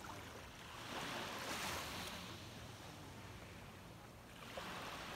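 Small waves washing up onto a sandy shore and drawing back. The wash swells twice, once about a second in and again near the end.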